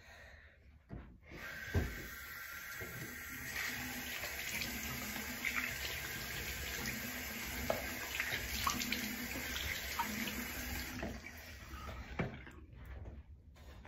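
Bathroom sink tap running, with small splashes as water is scooped onto a face. It starts about a second in and shuts off near the end.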